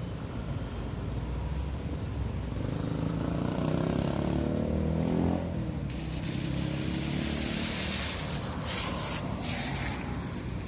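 Road traffic at an intersection, with no horns. A motor vehicle's engine passes close, getting louder to about five seconds in and then falling away. A hiss of passing traffic follows, with a few short surges near the end.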